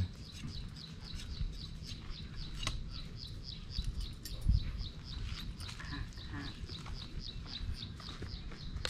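A steady run of rapid, high-pitched chirps, about five a second, keeping an even rhythm, with a faint low thump about four and a half seconds in.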